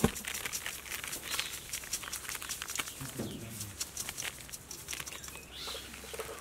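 Winged termites pouring onto a woven bamboo tray and being spread by hand: a dense crackly rustle of many small clicks. A short call with a falling pitch cuts in about three seconds in.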